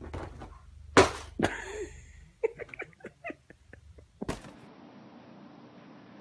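A sudden loud thump about a second in, a second knock with a brief cry, then a person laughing in short bursts.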